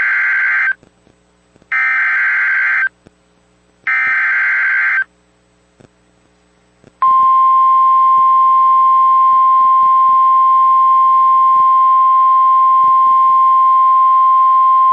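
Emergency Alert System alert signal: three short warbling SAME header data bursts about a second apart, then, about seven seconds in, the steady single-pitch 1050 Hz NOAA Weather Radio warning alarm tone. The sequence marks the start of a new weather warning.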